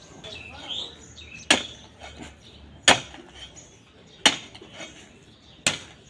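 A hoe striking down into a heap of brick chips, sand and cement being hand-mixed for concrete: four sharp chopping impacts, about one and a half seconds apart.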